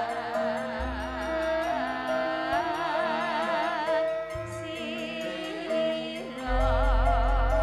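Javanese gamelan music with female sindhen vocals singing a wavering line with heavy vibrato over steady, ringing metallophone notes. A deep low note enters about a second in, and a louder one near the end.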